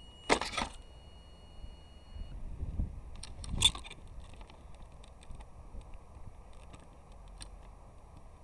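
Hands handling a small RC car's plastic body and the camera mounted inside it: a loud clatter of clicks about half a second in, a heavier knock with a low rumble about three and a half seconds in, then scattered small ticks and rustles.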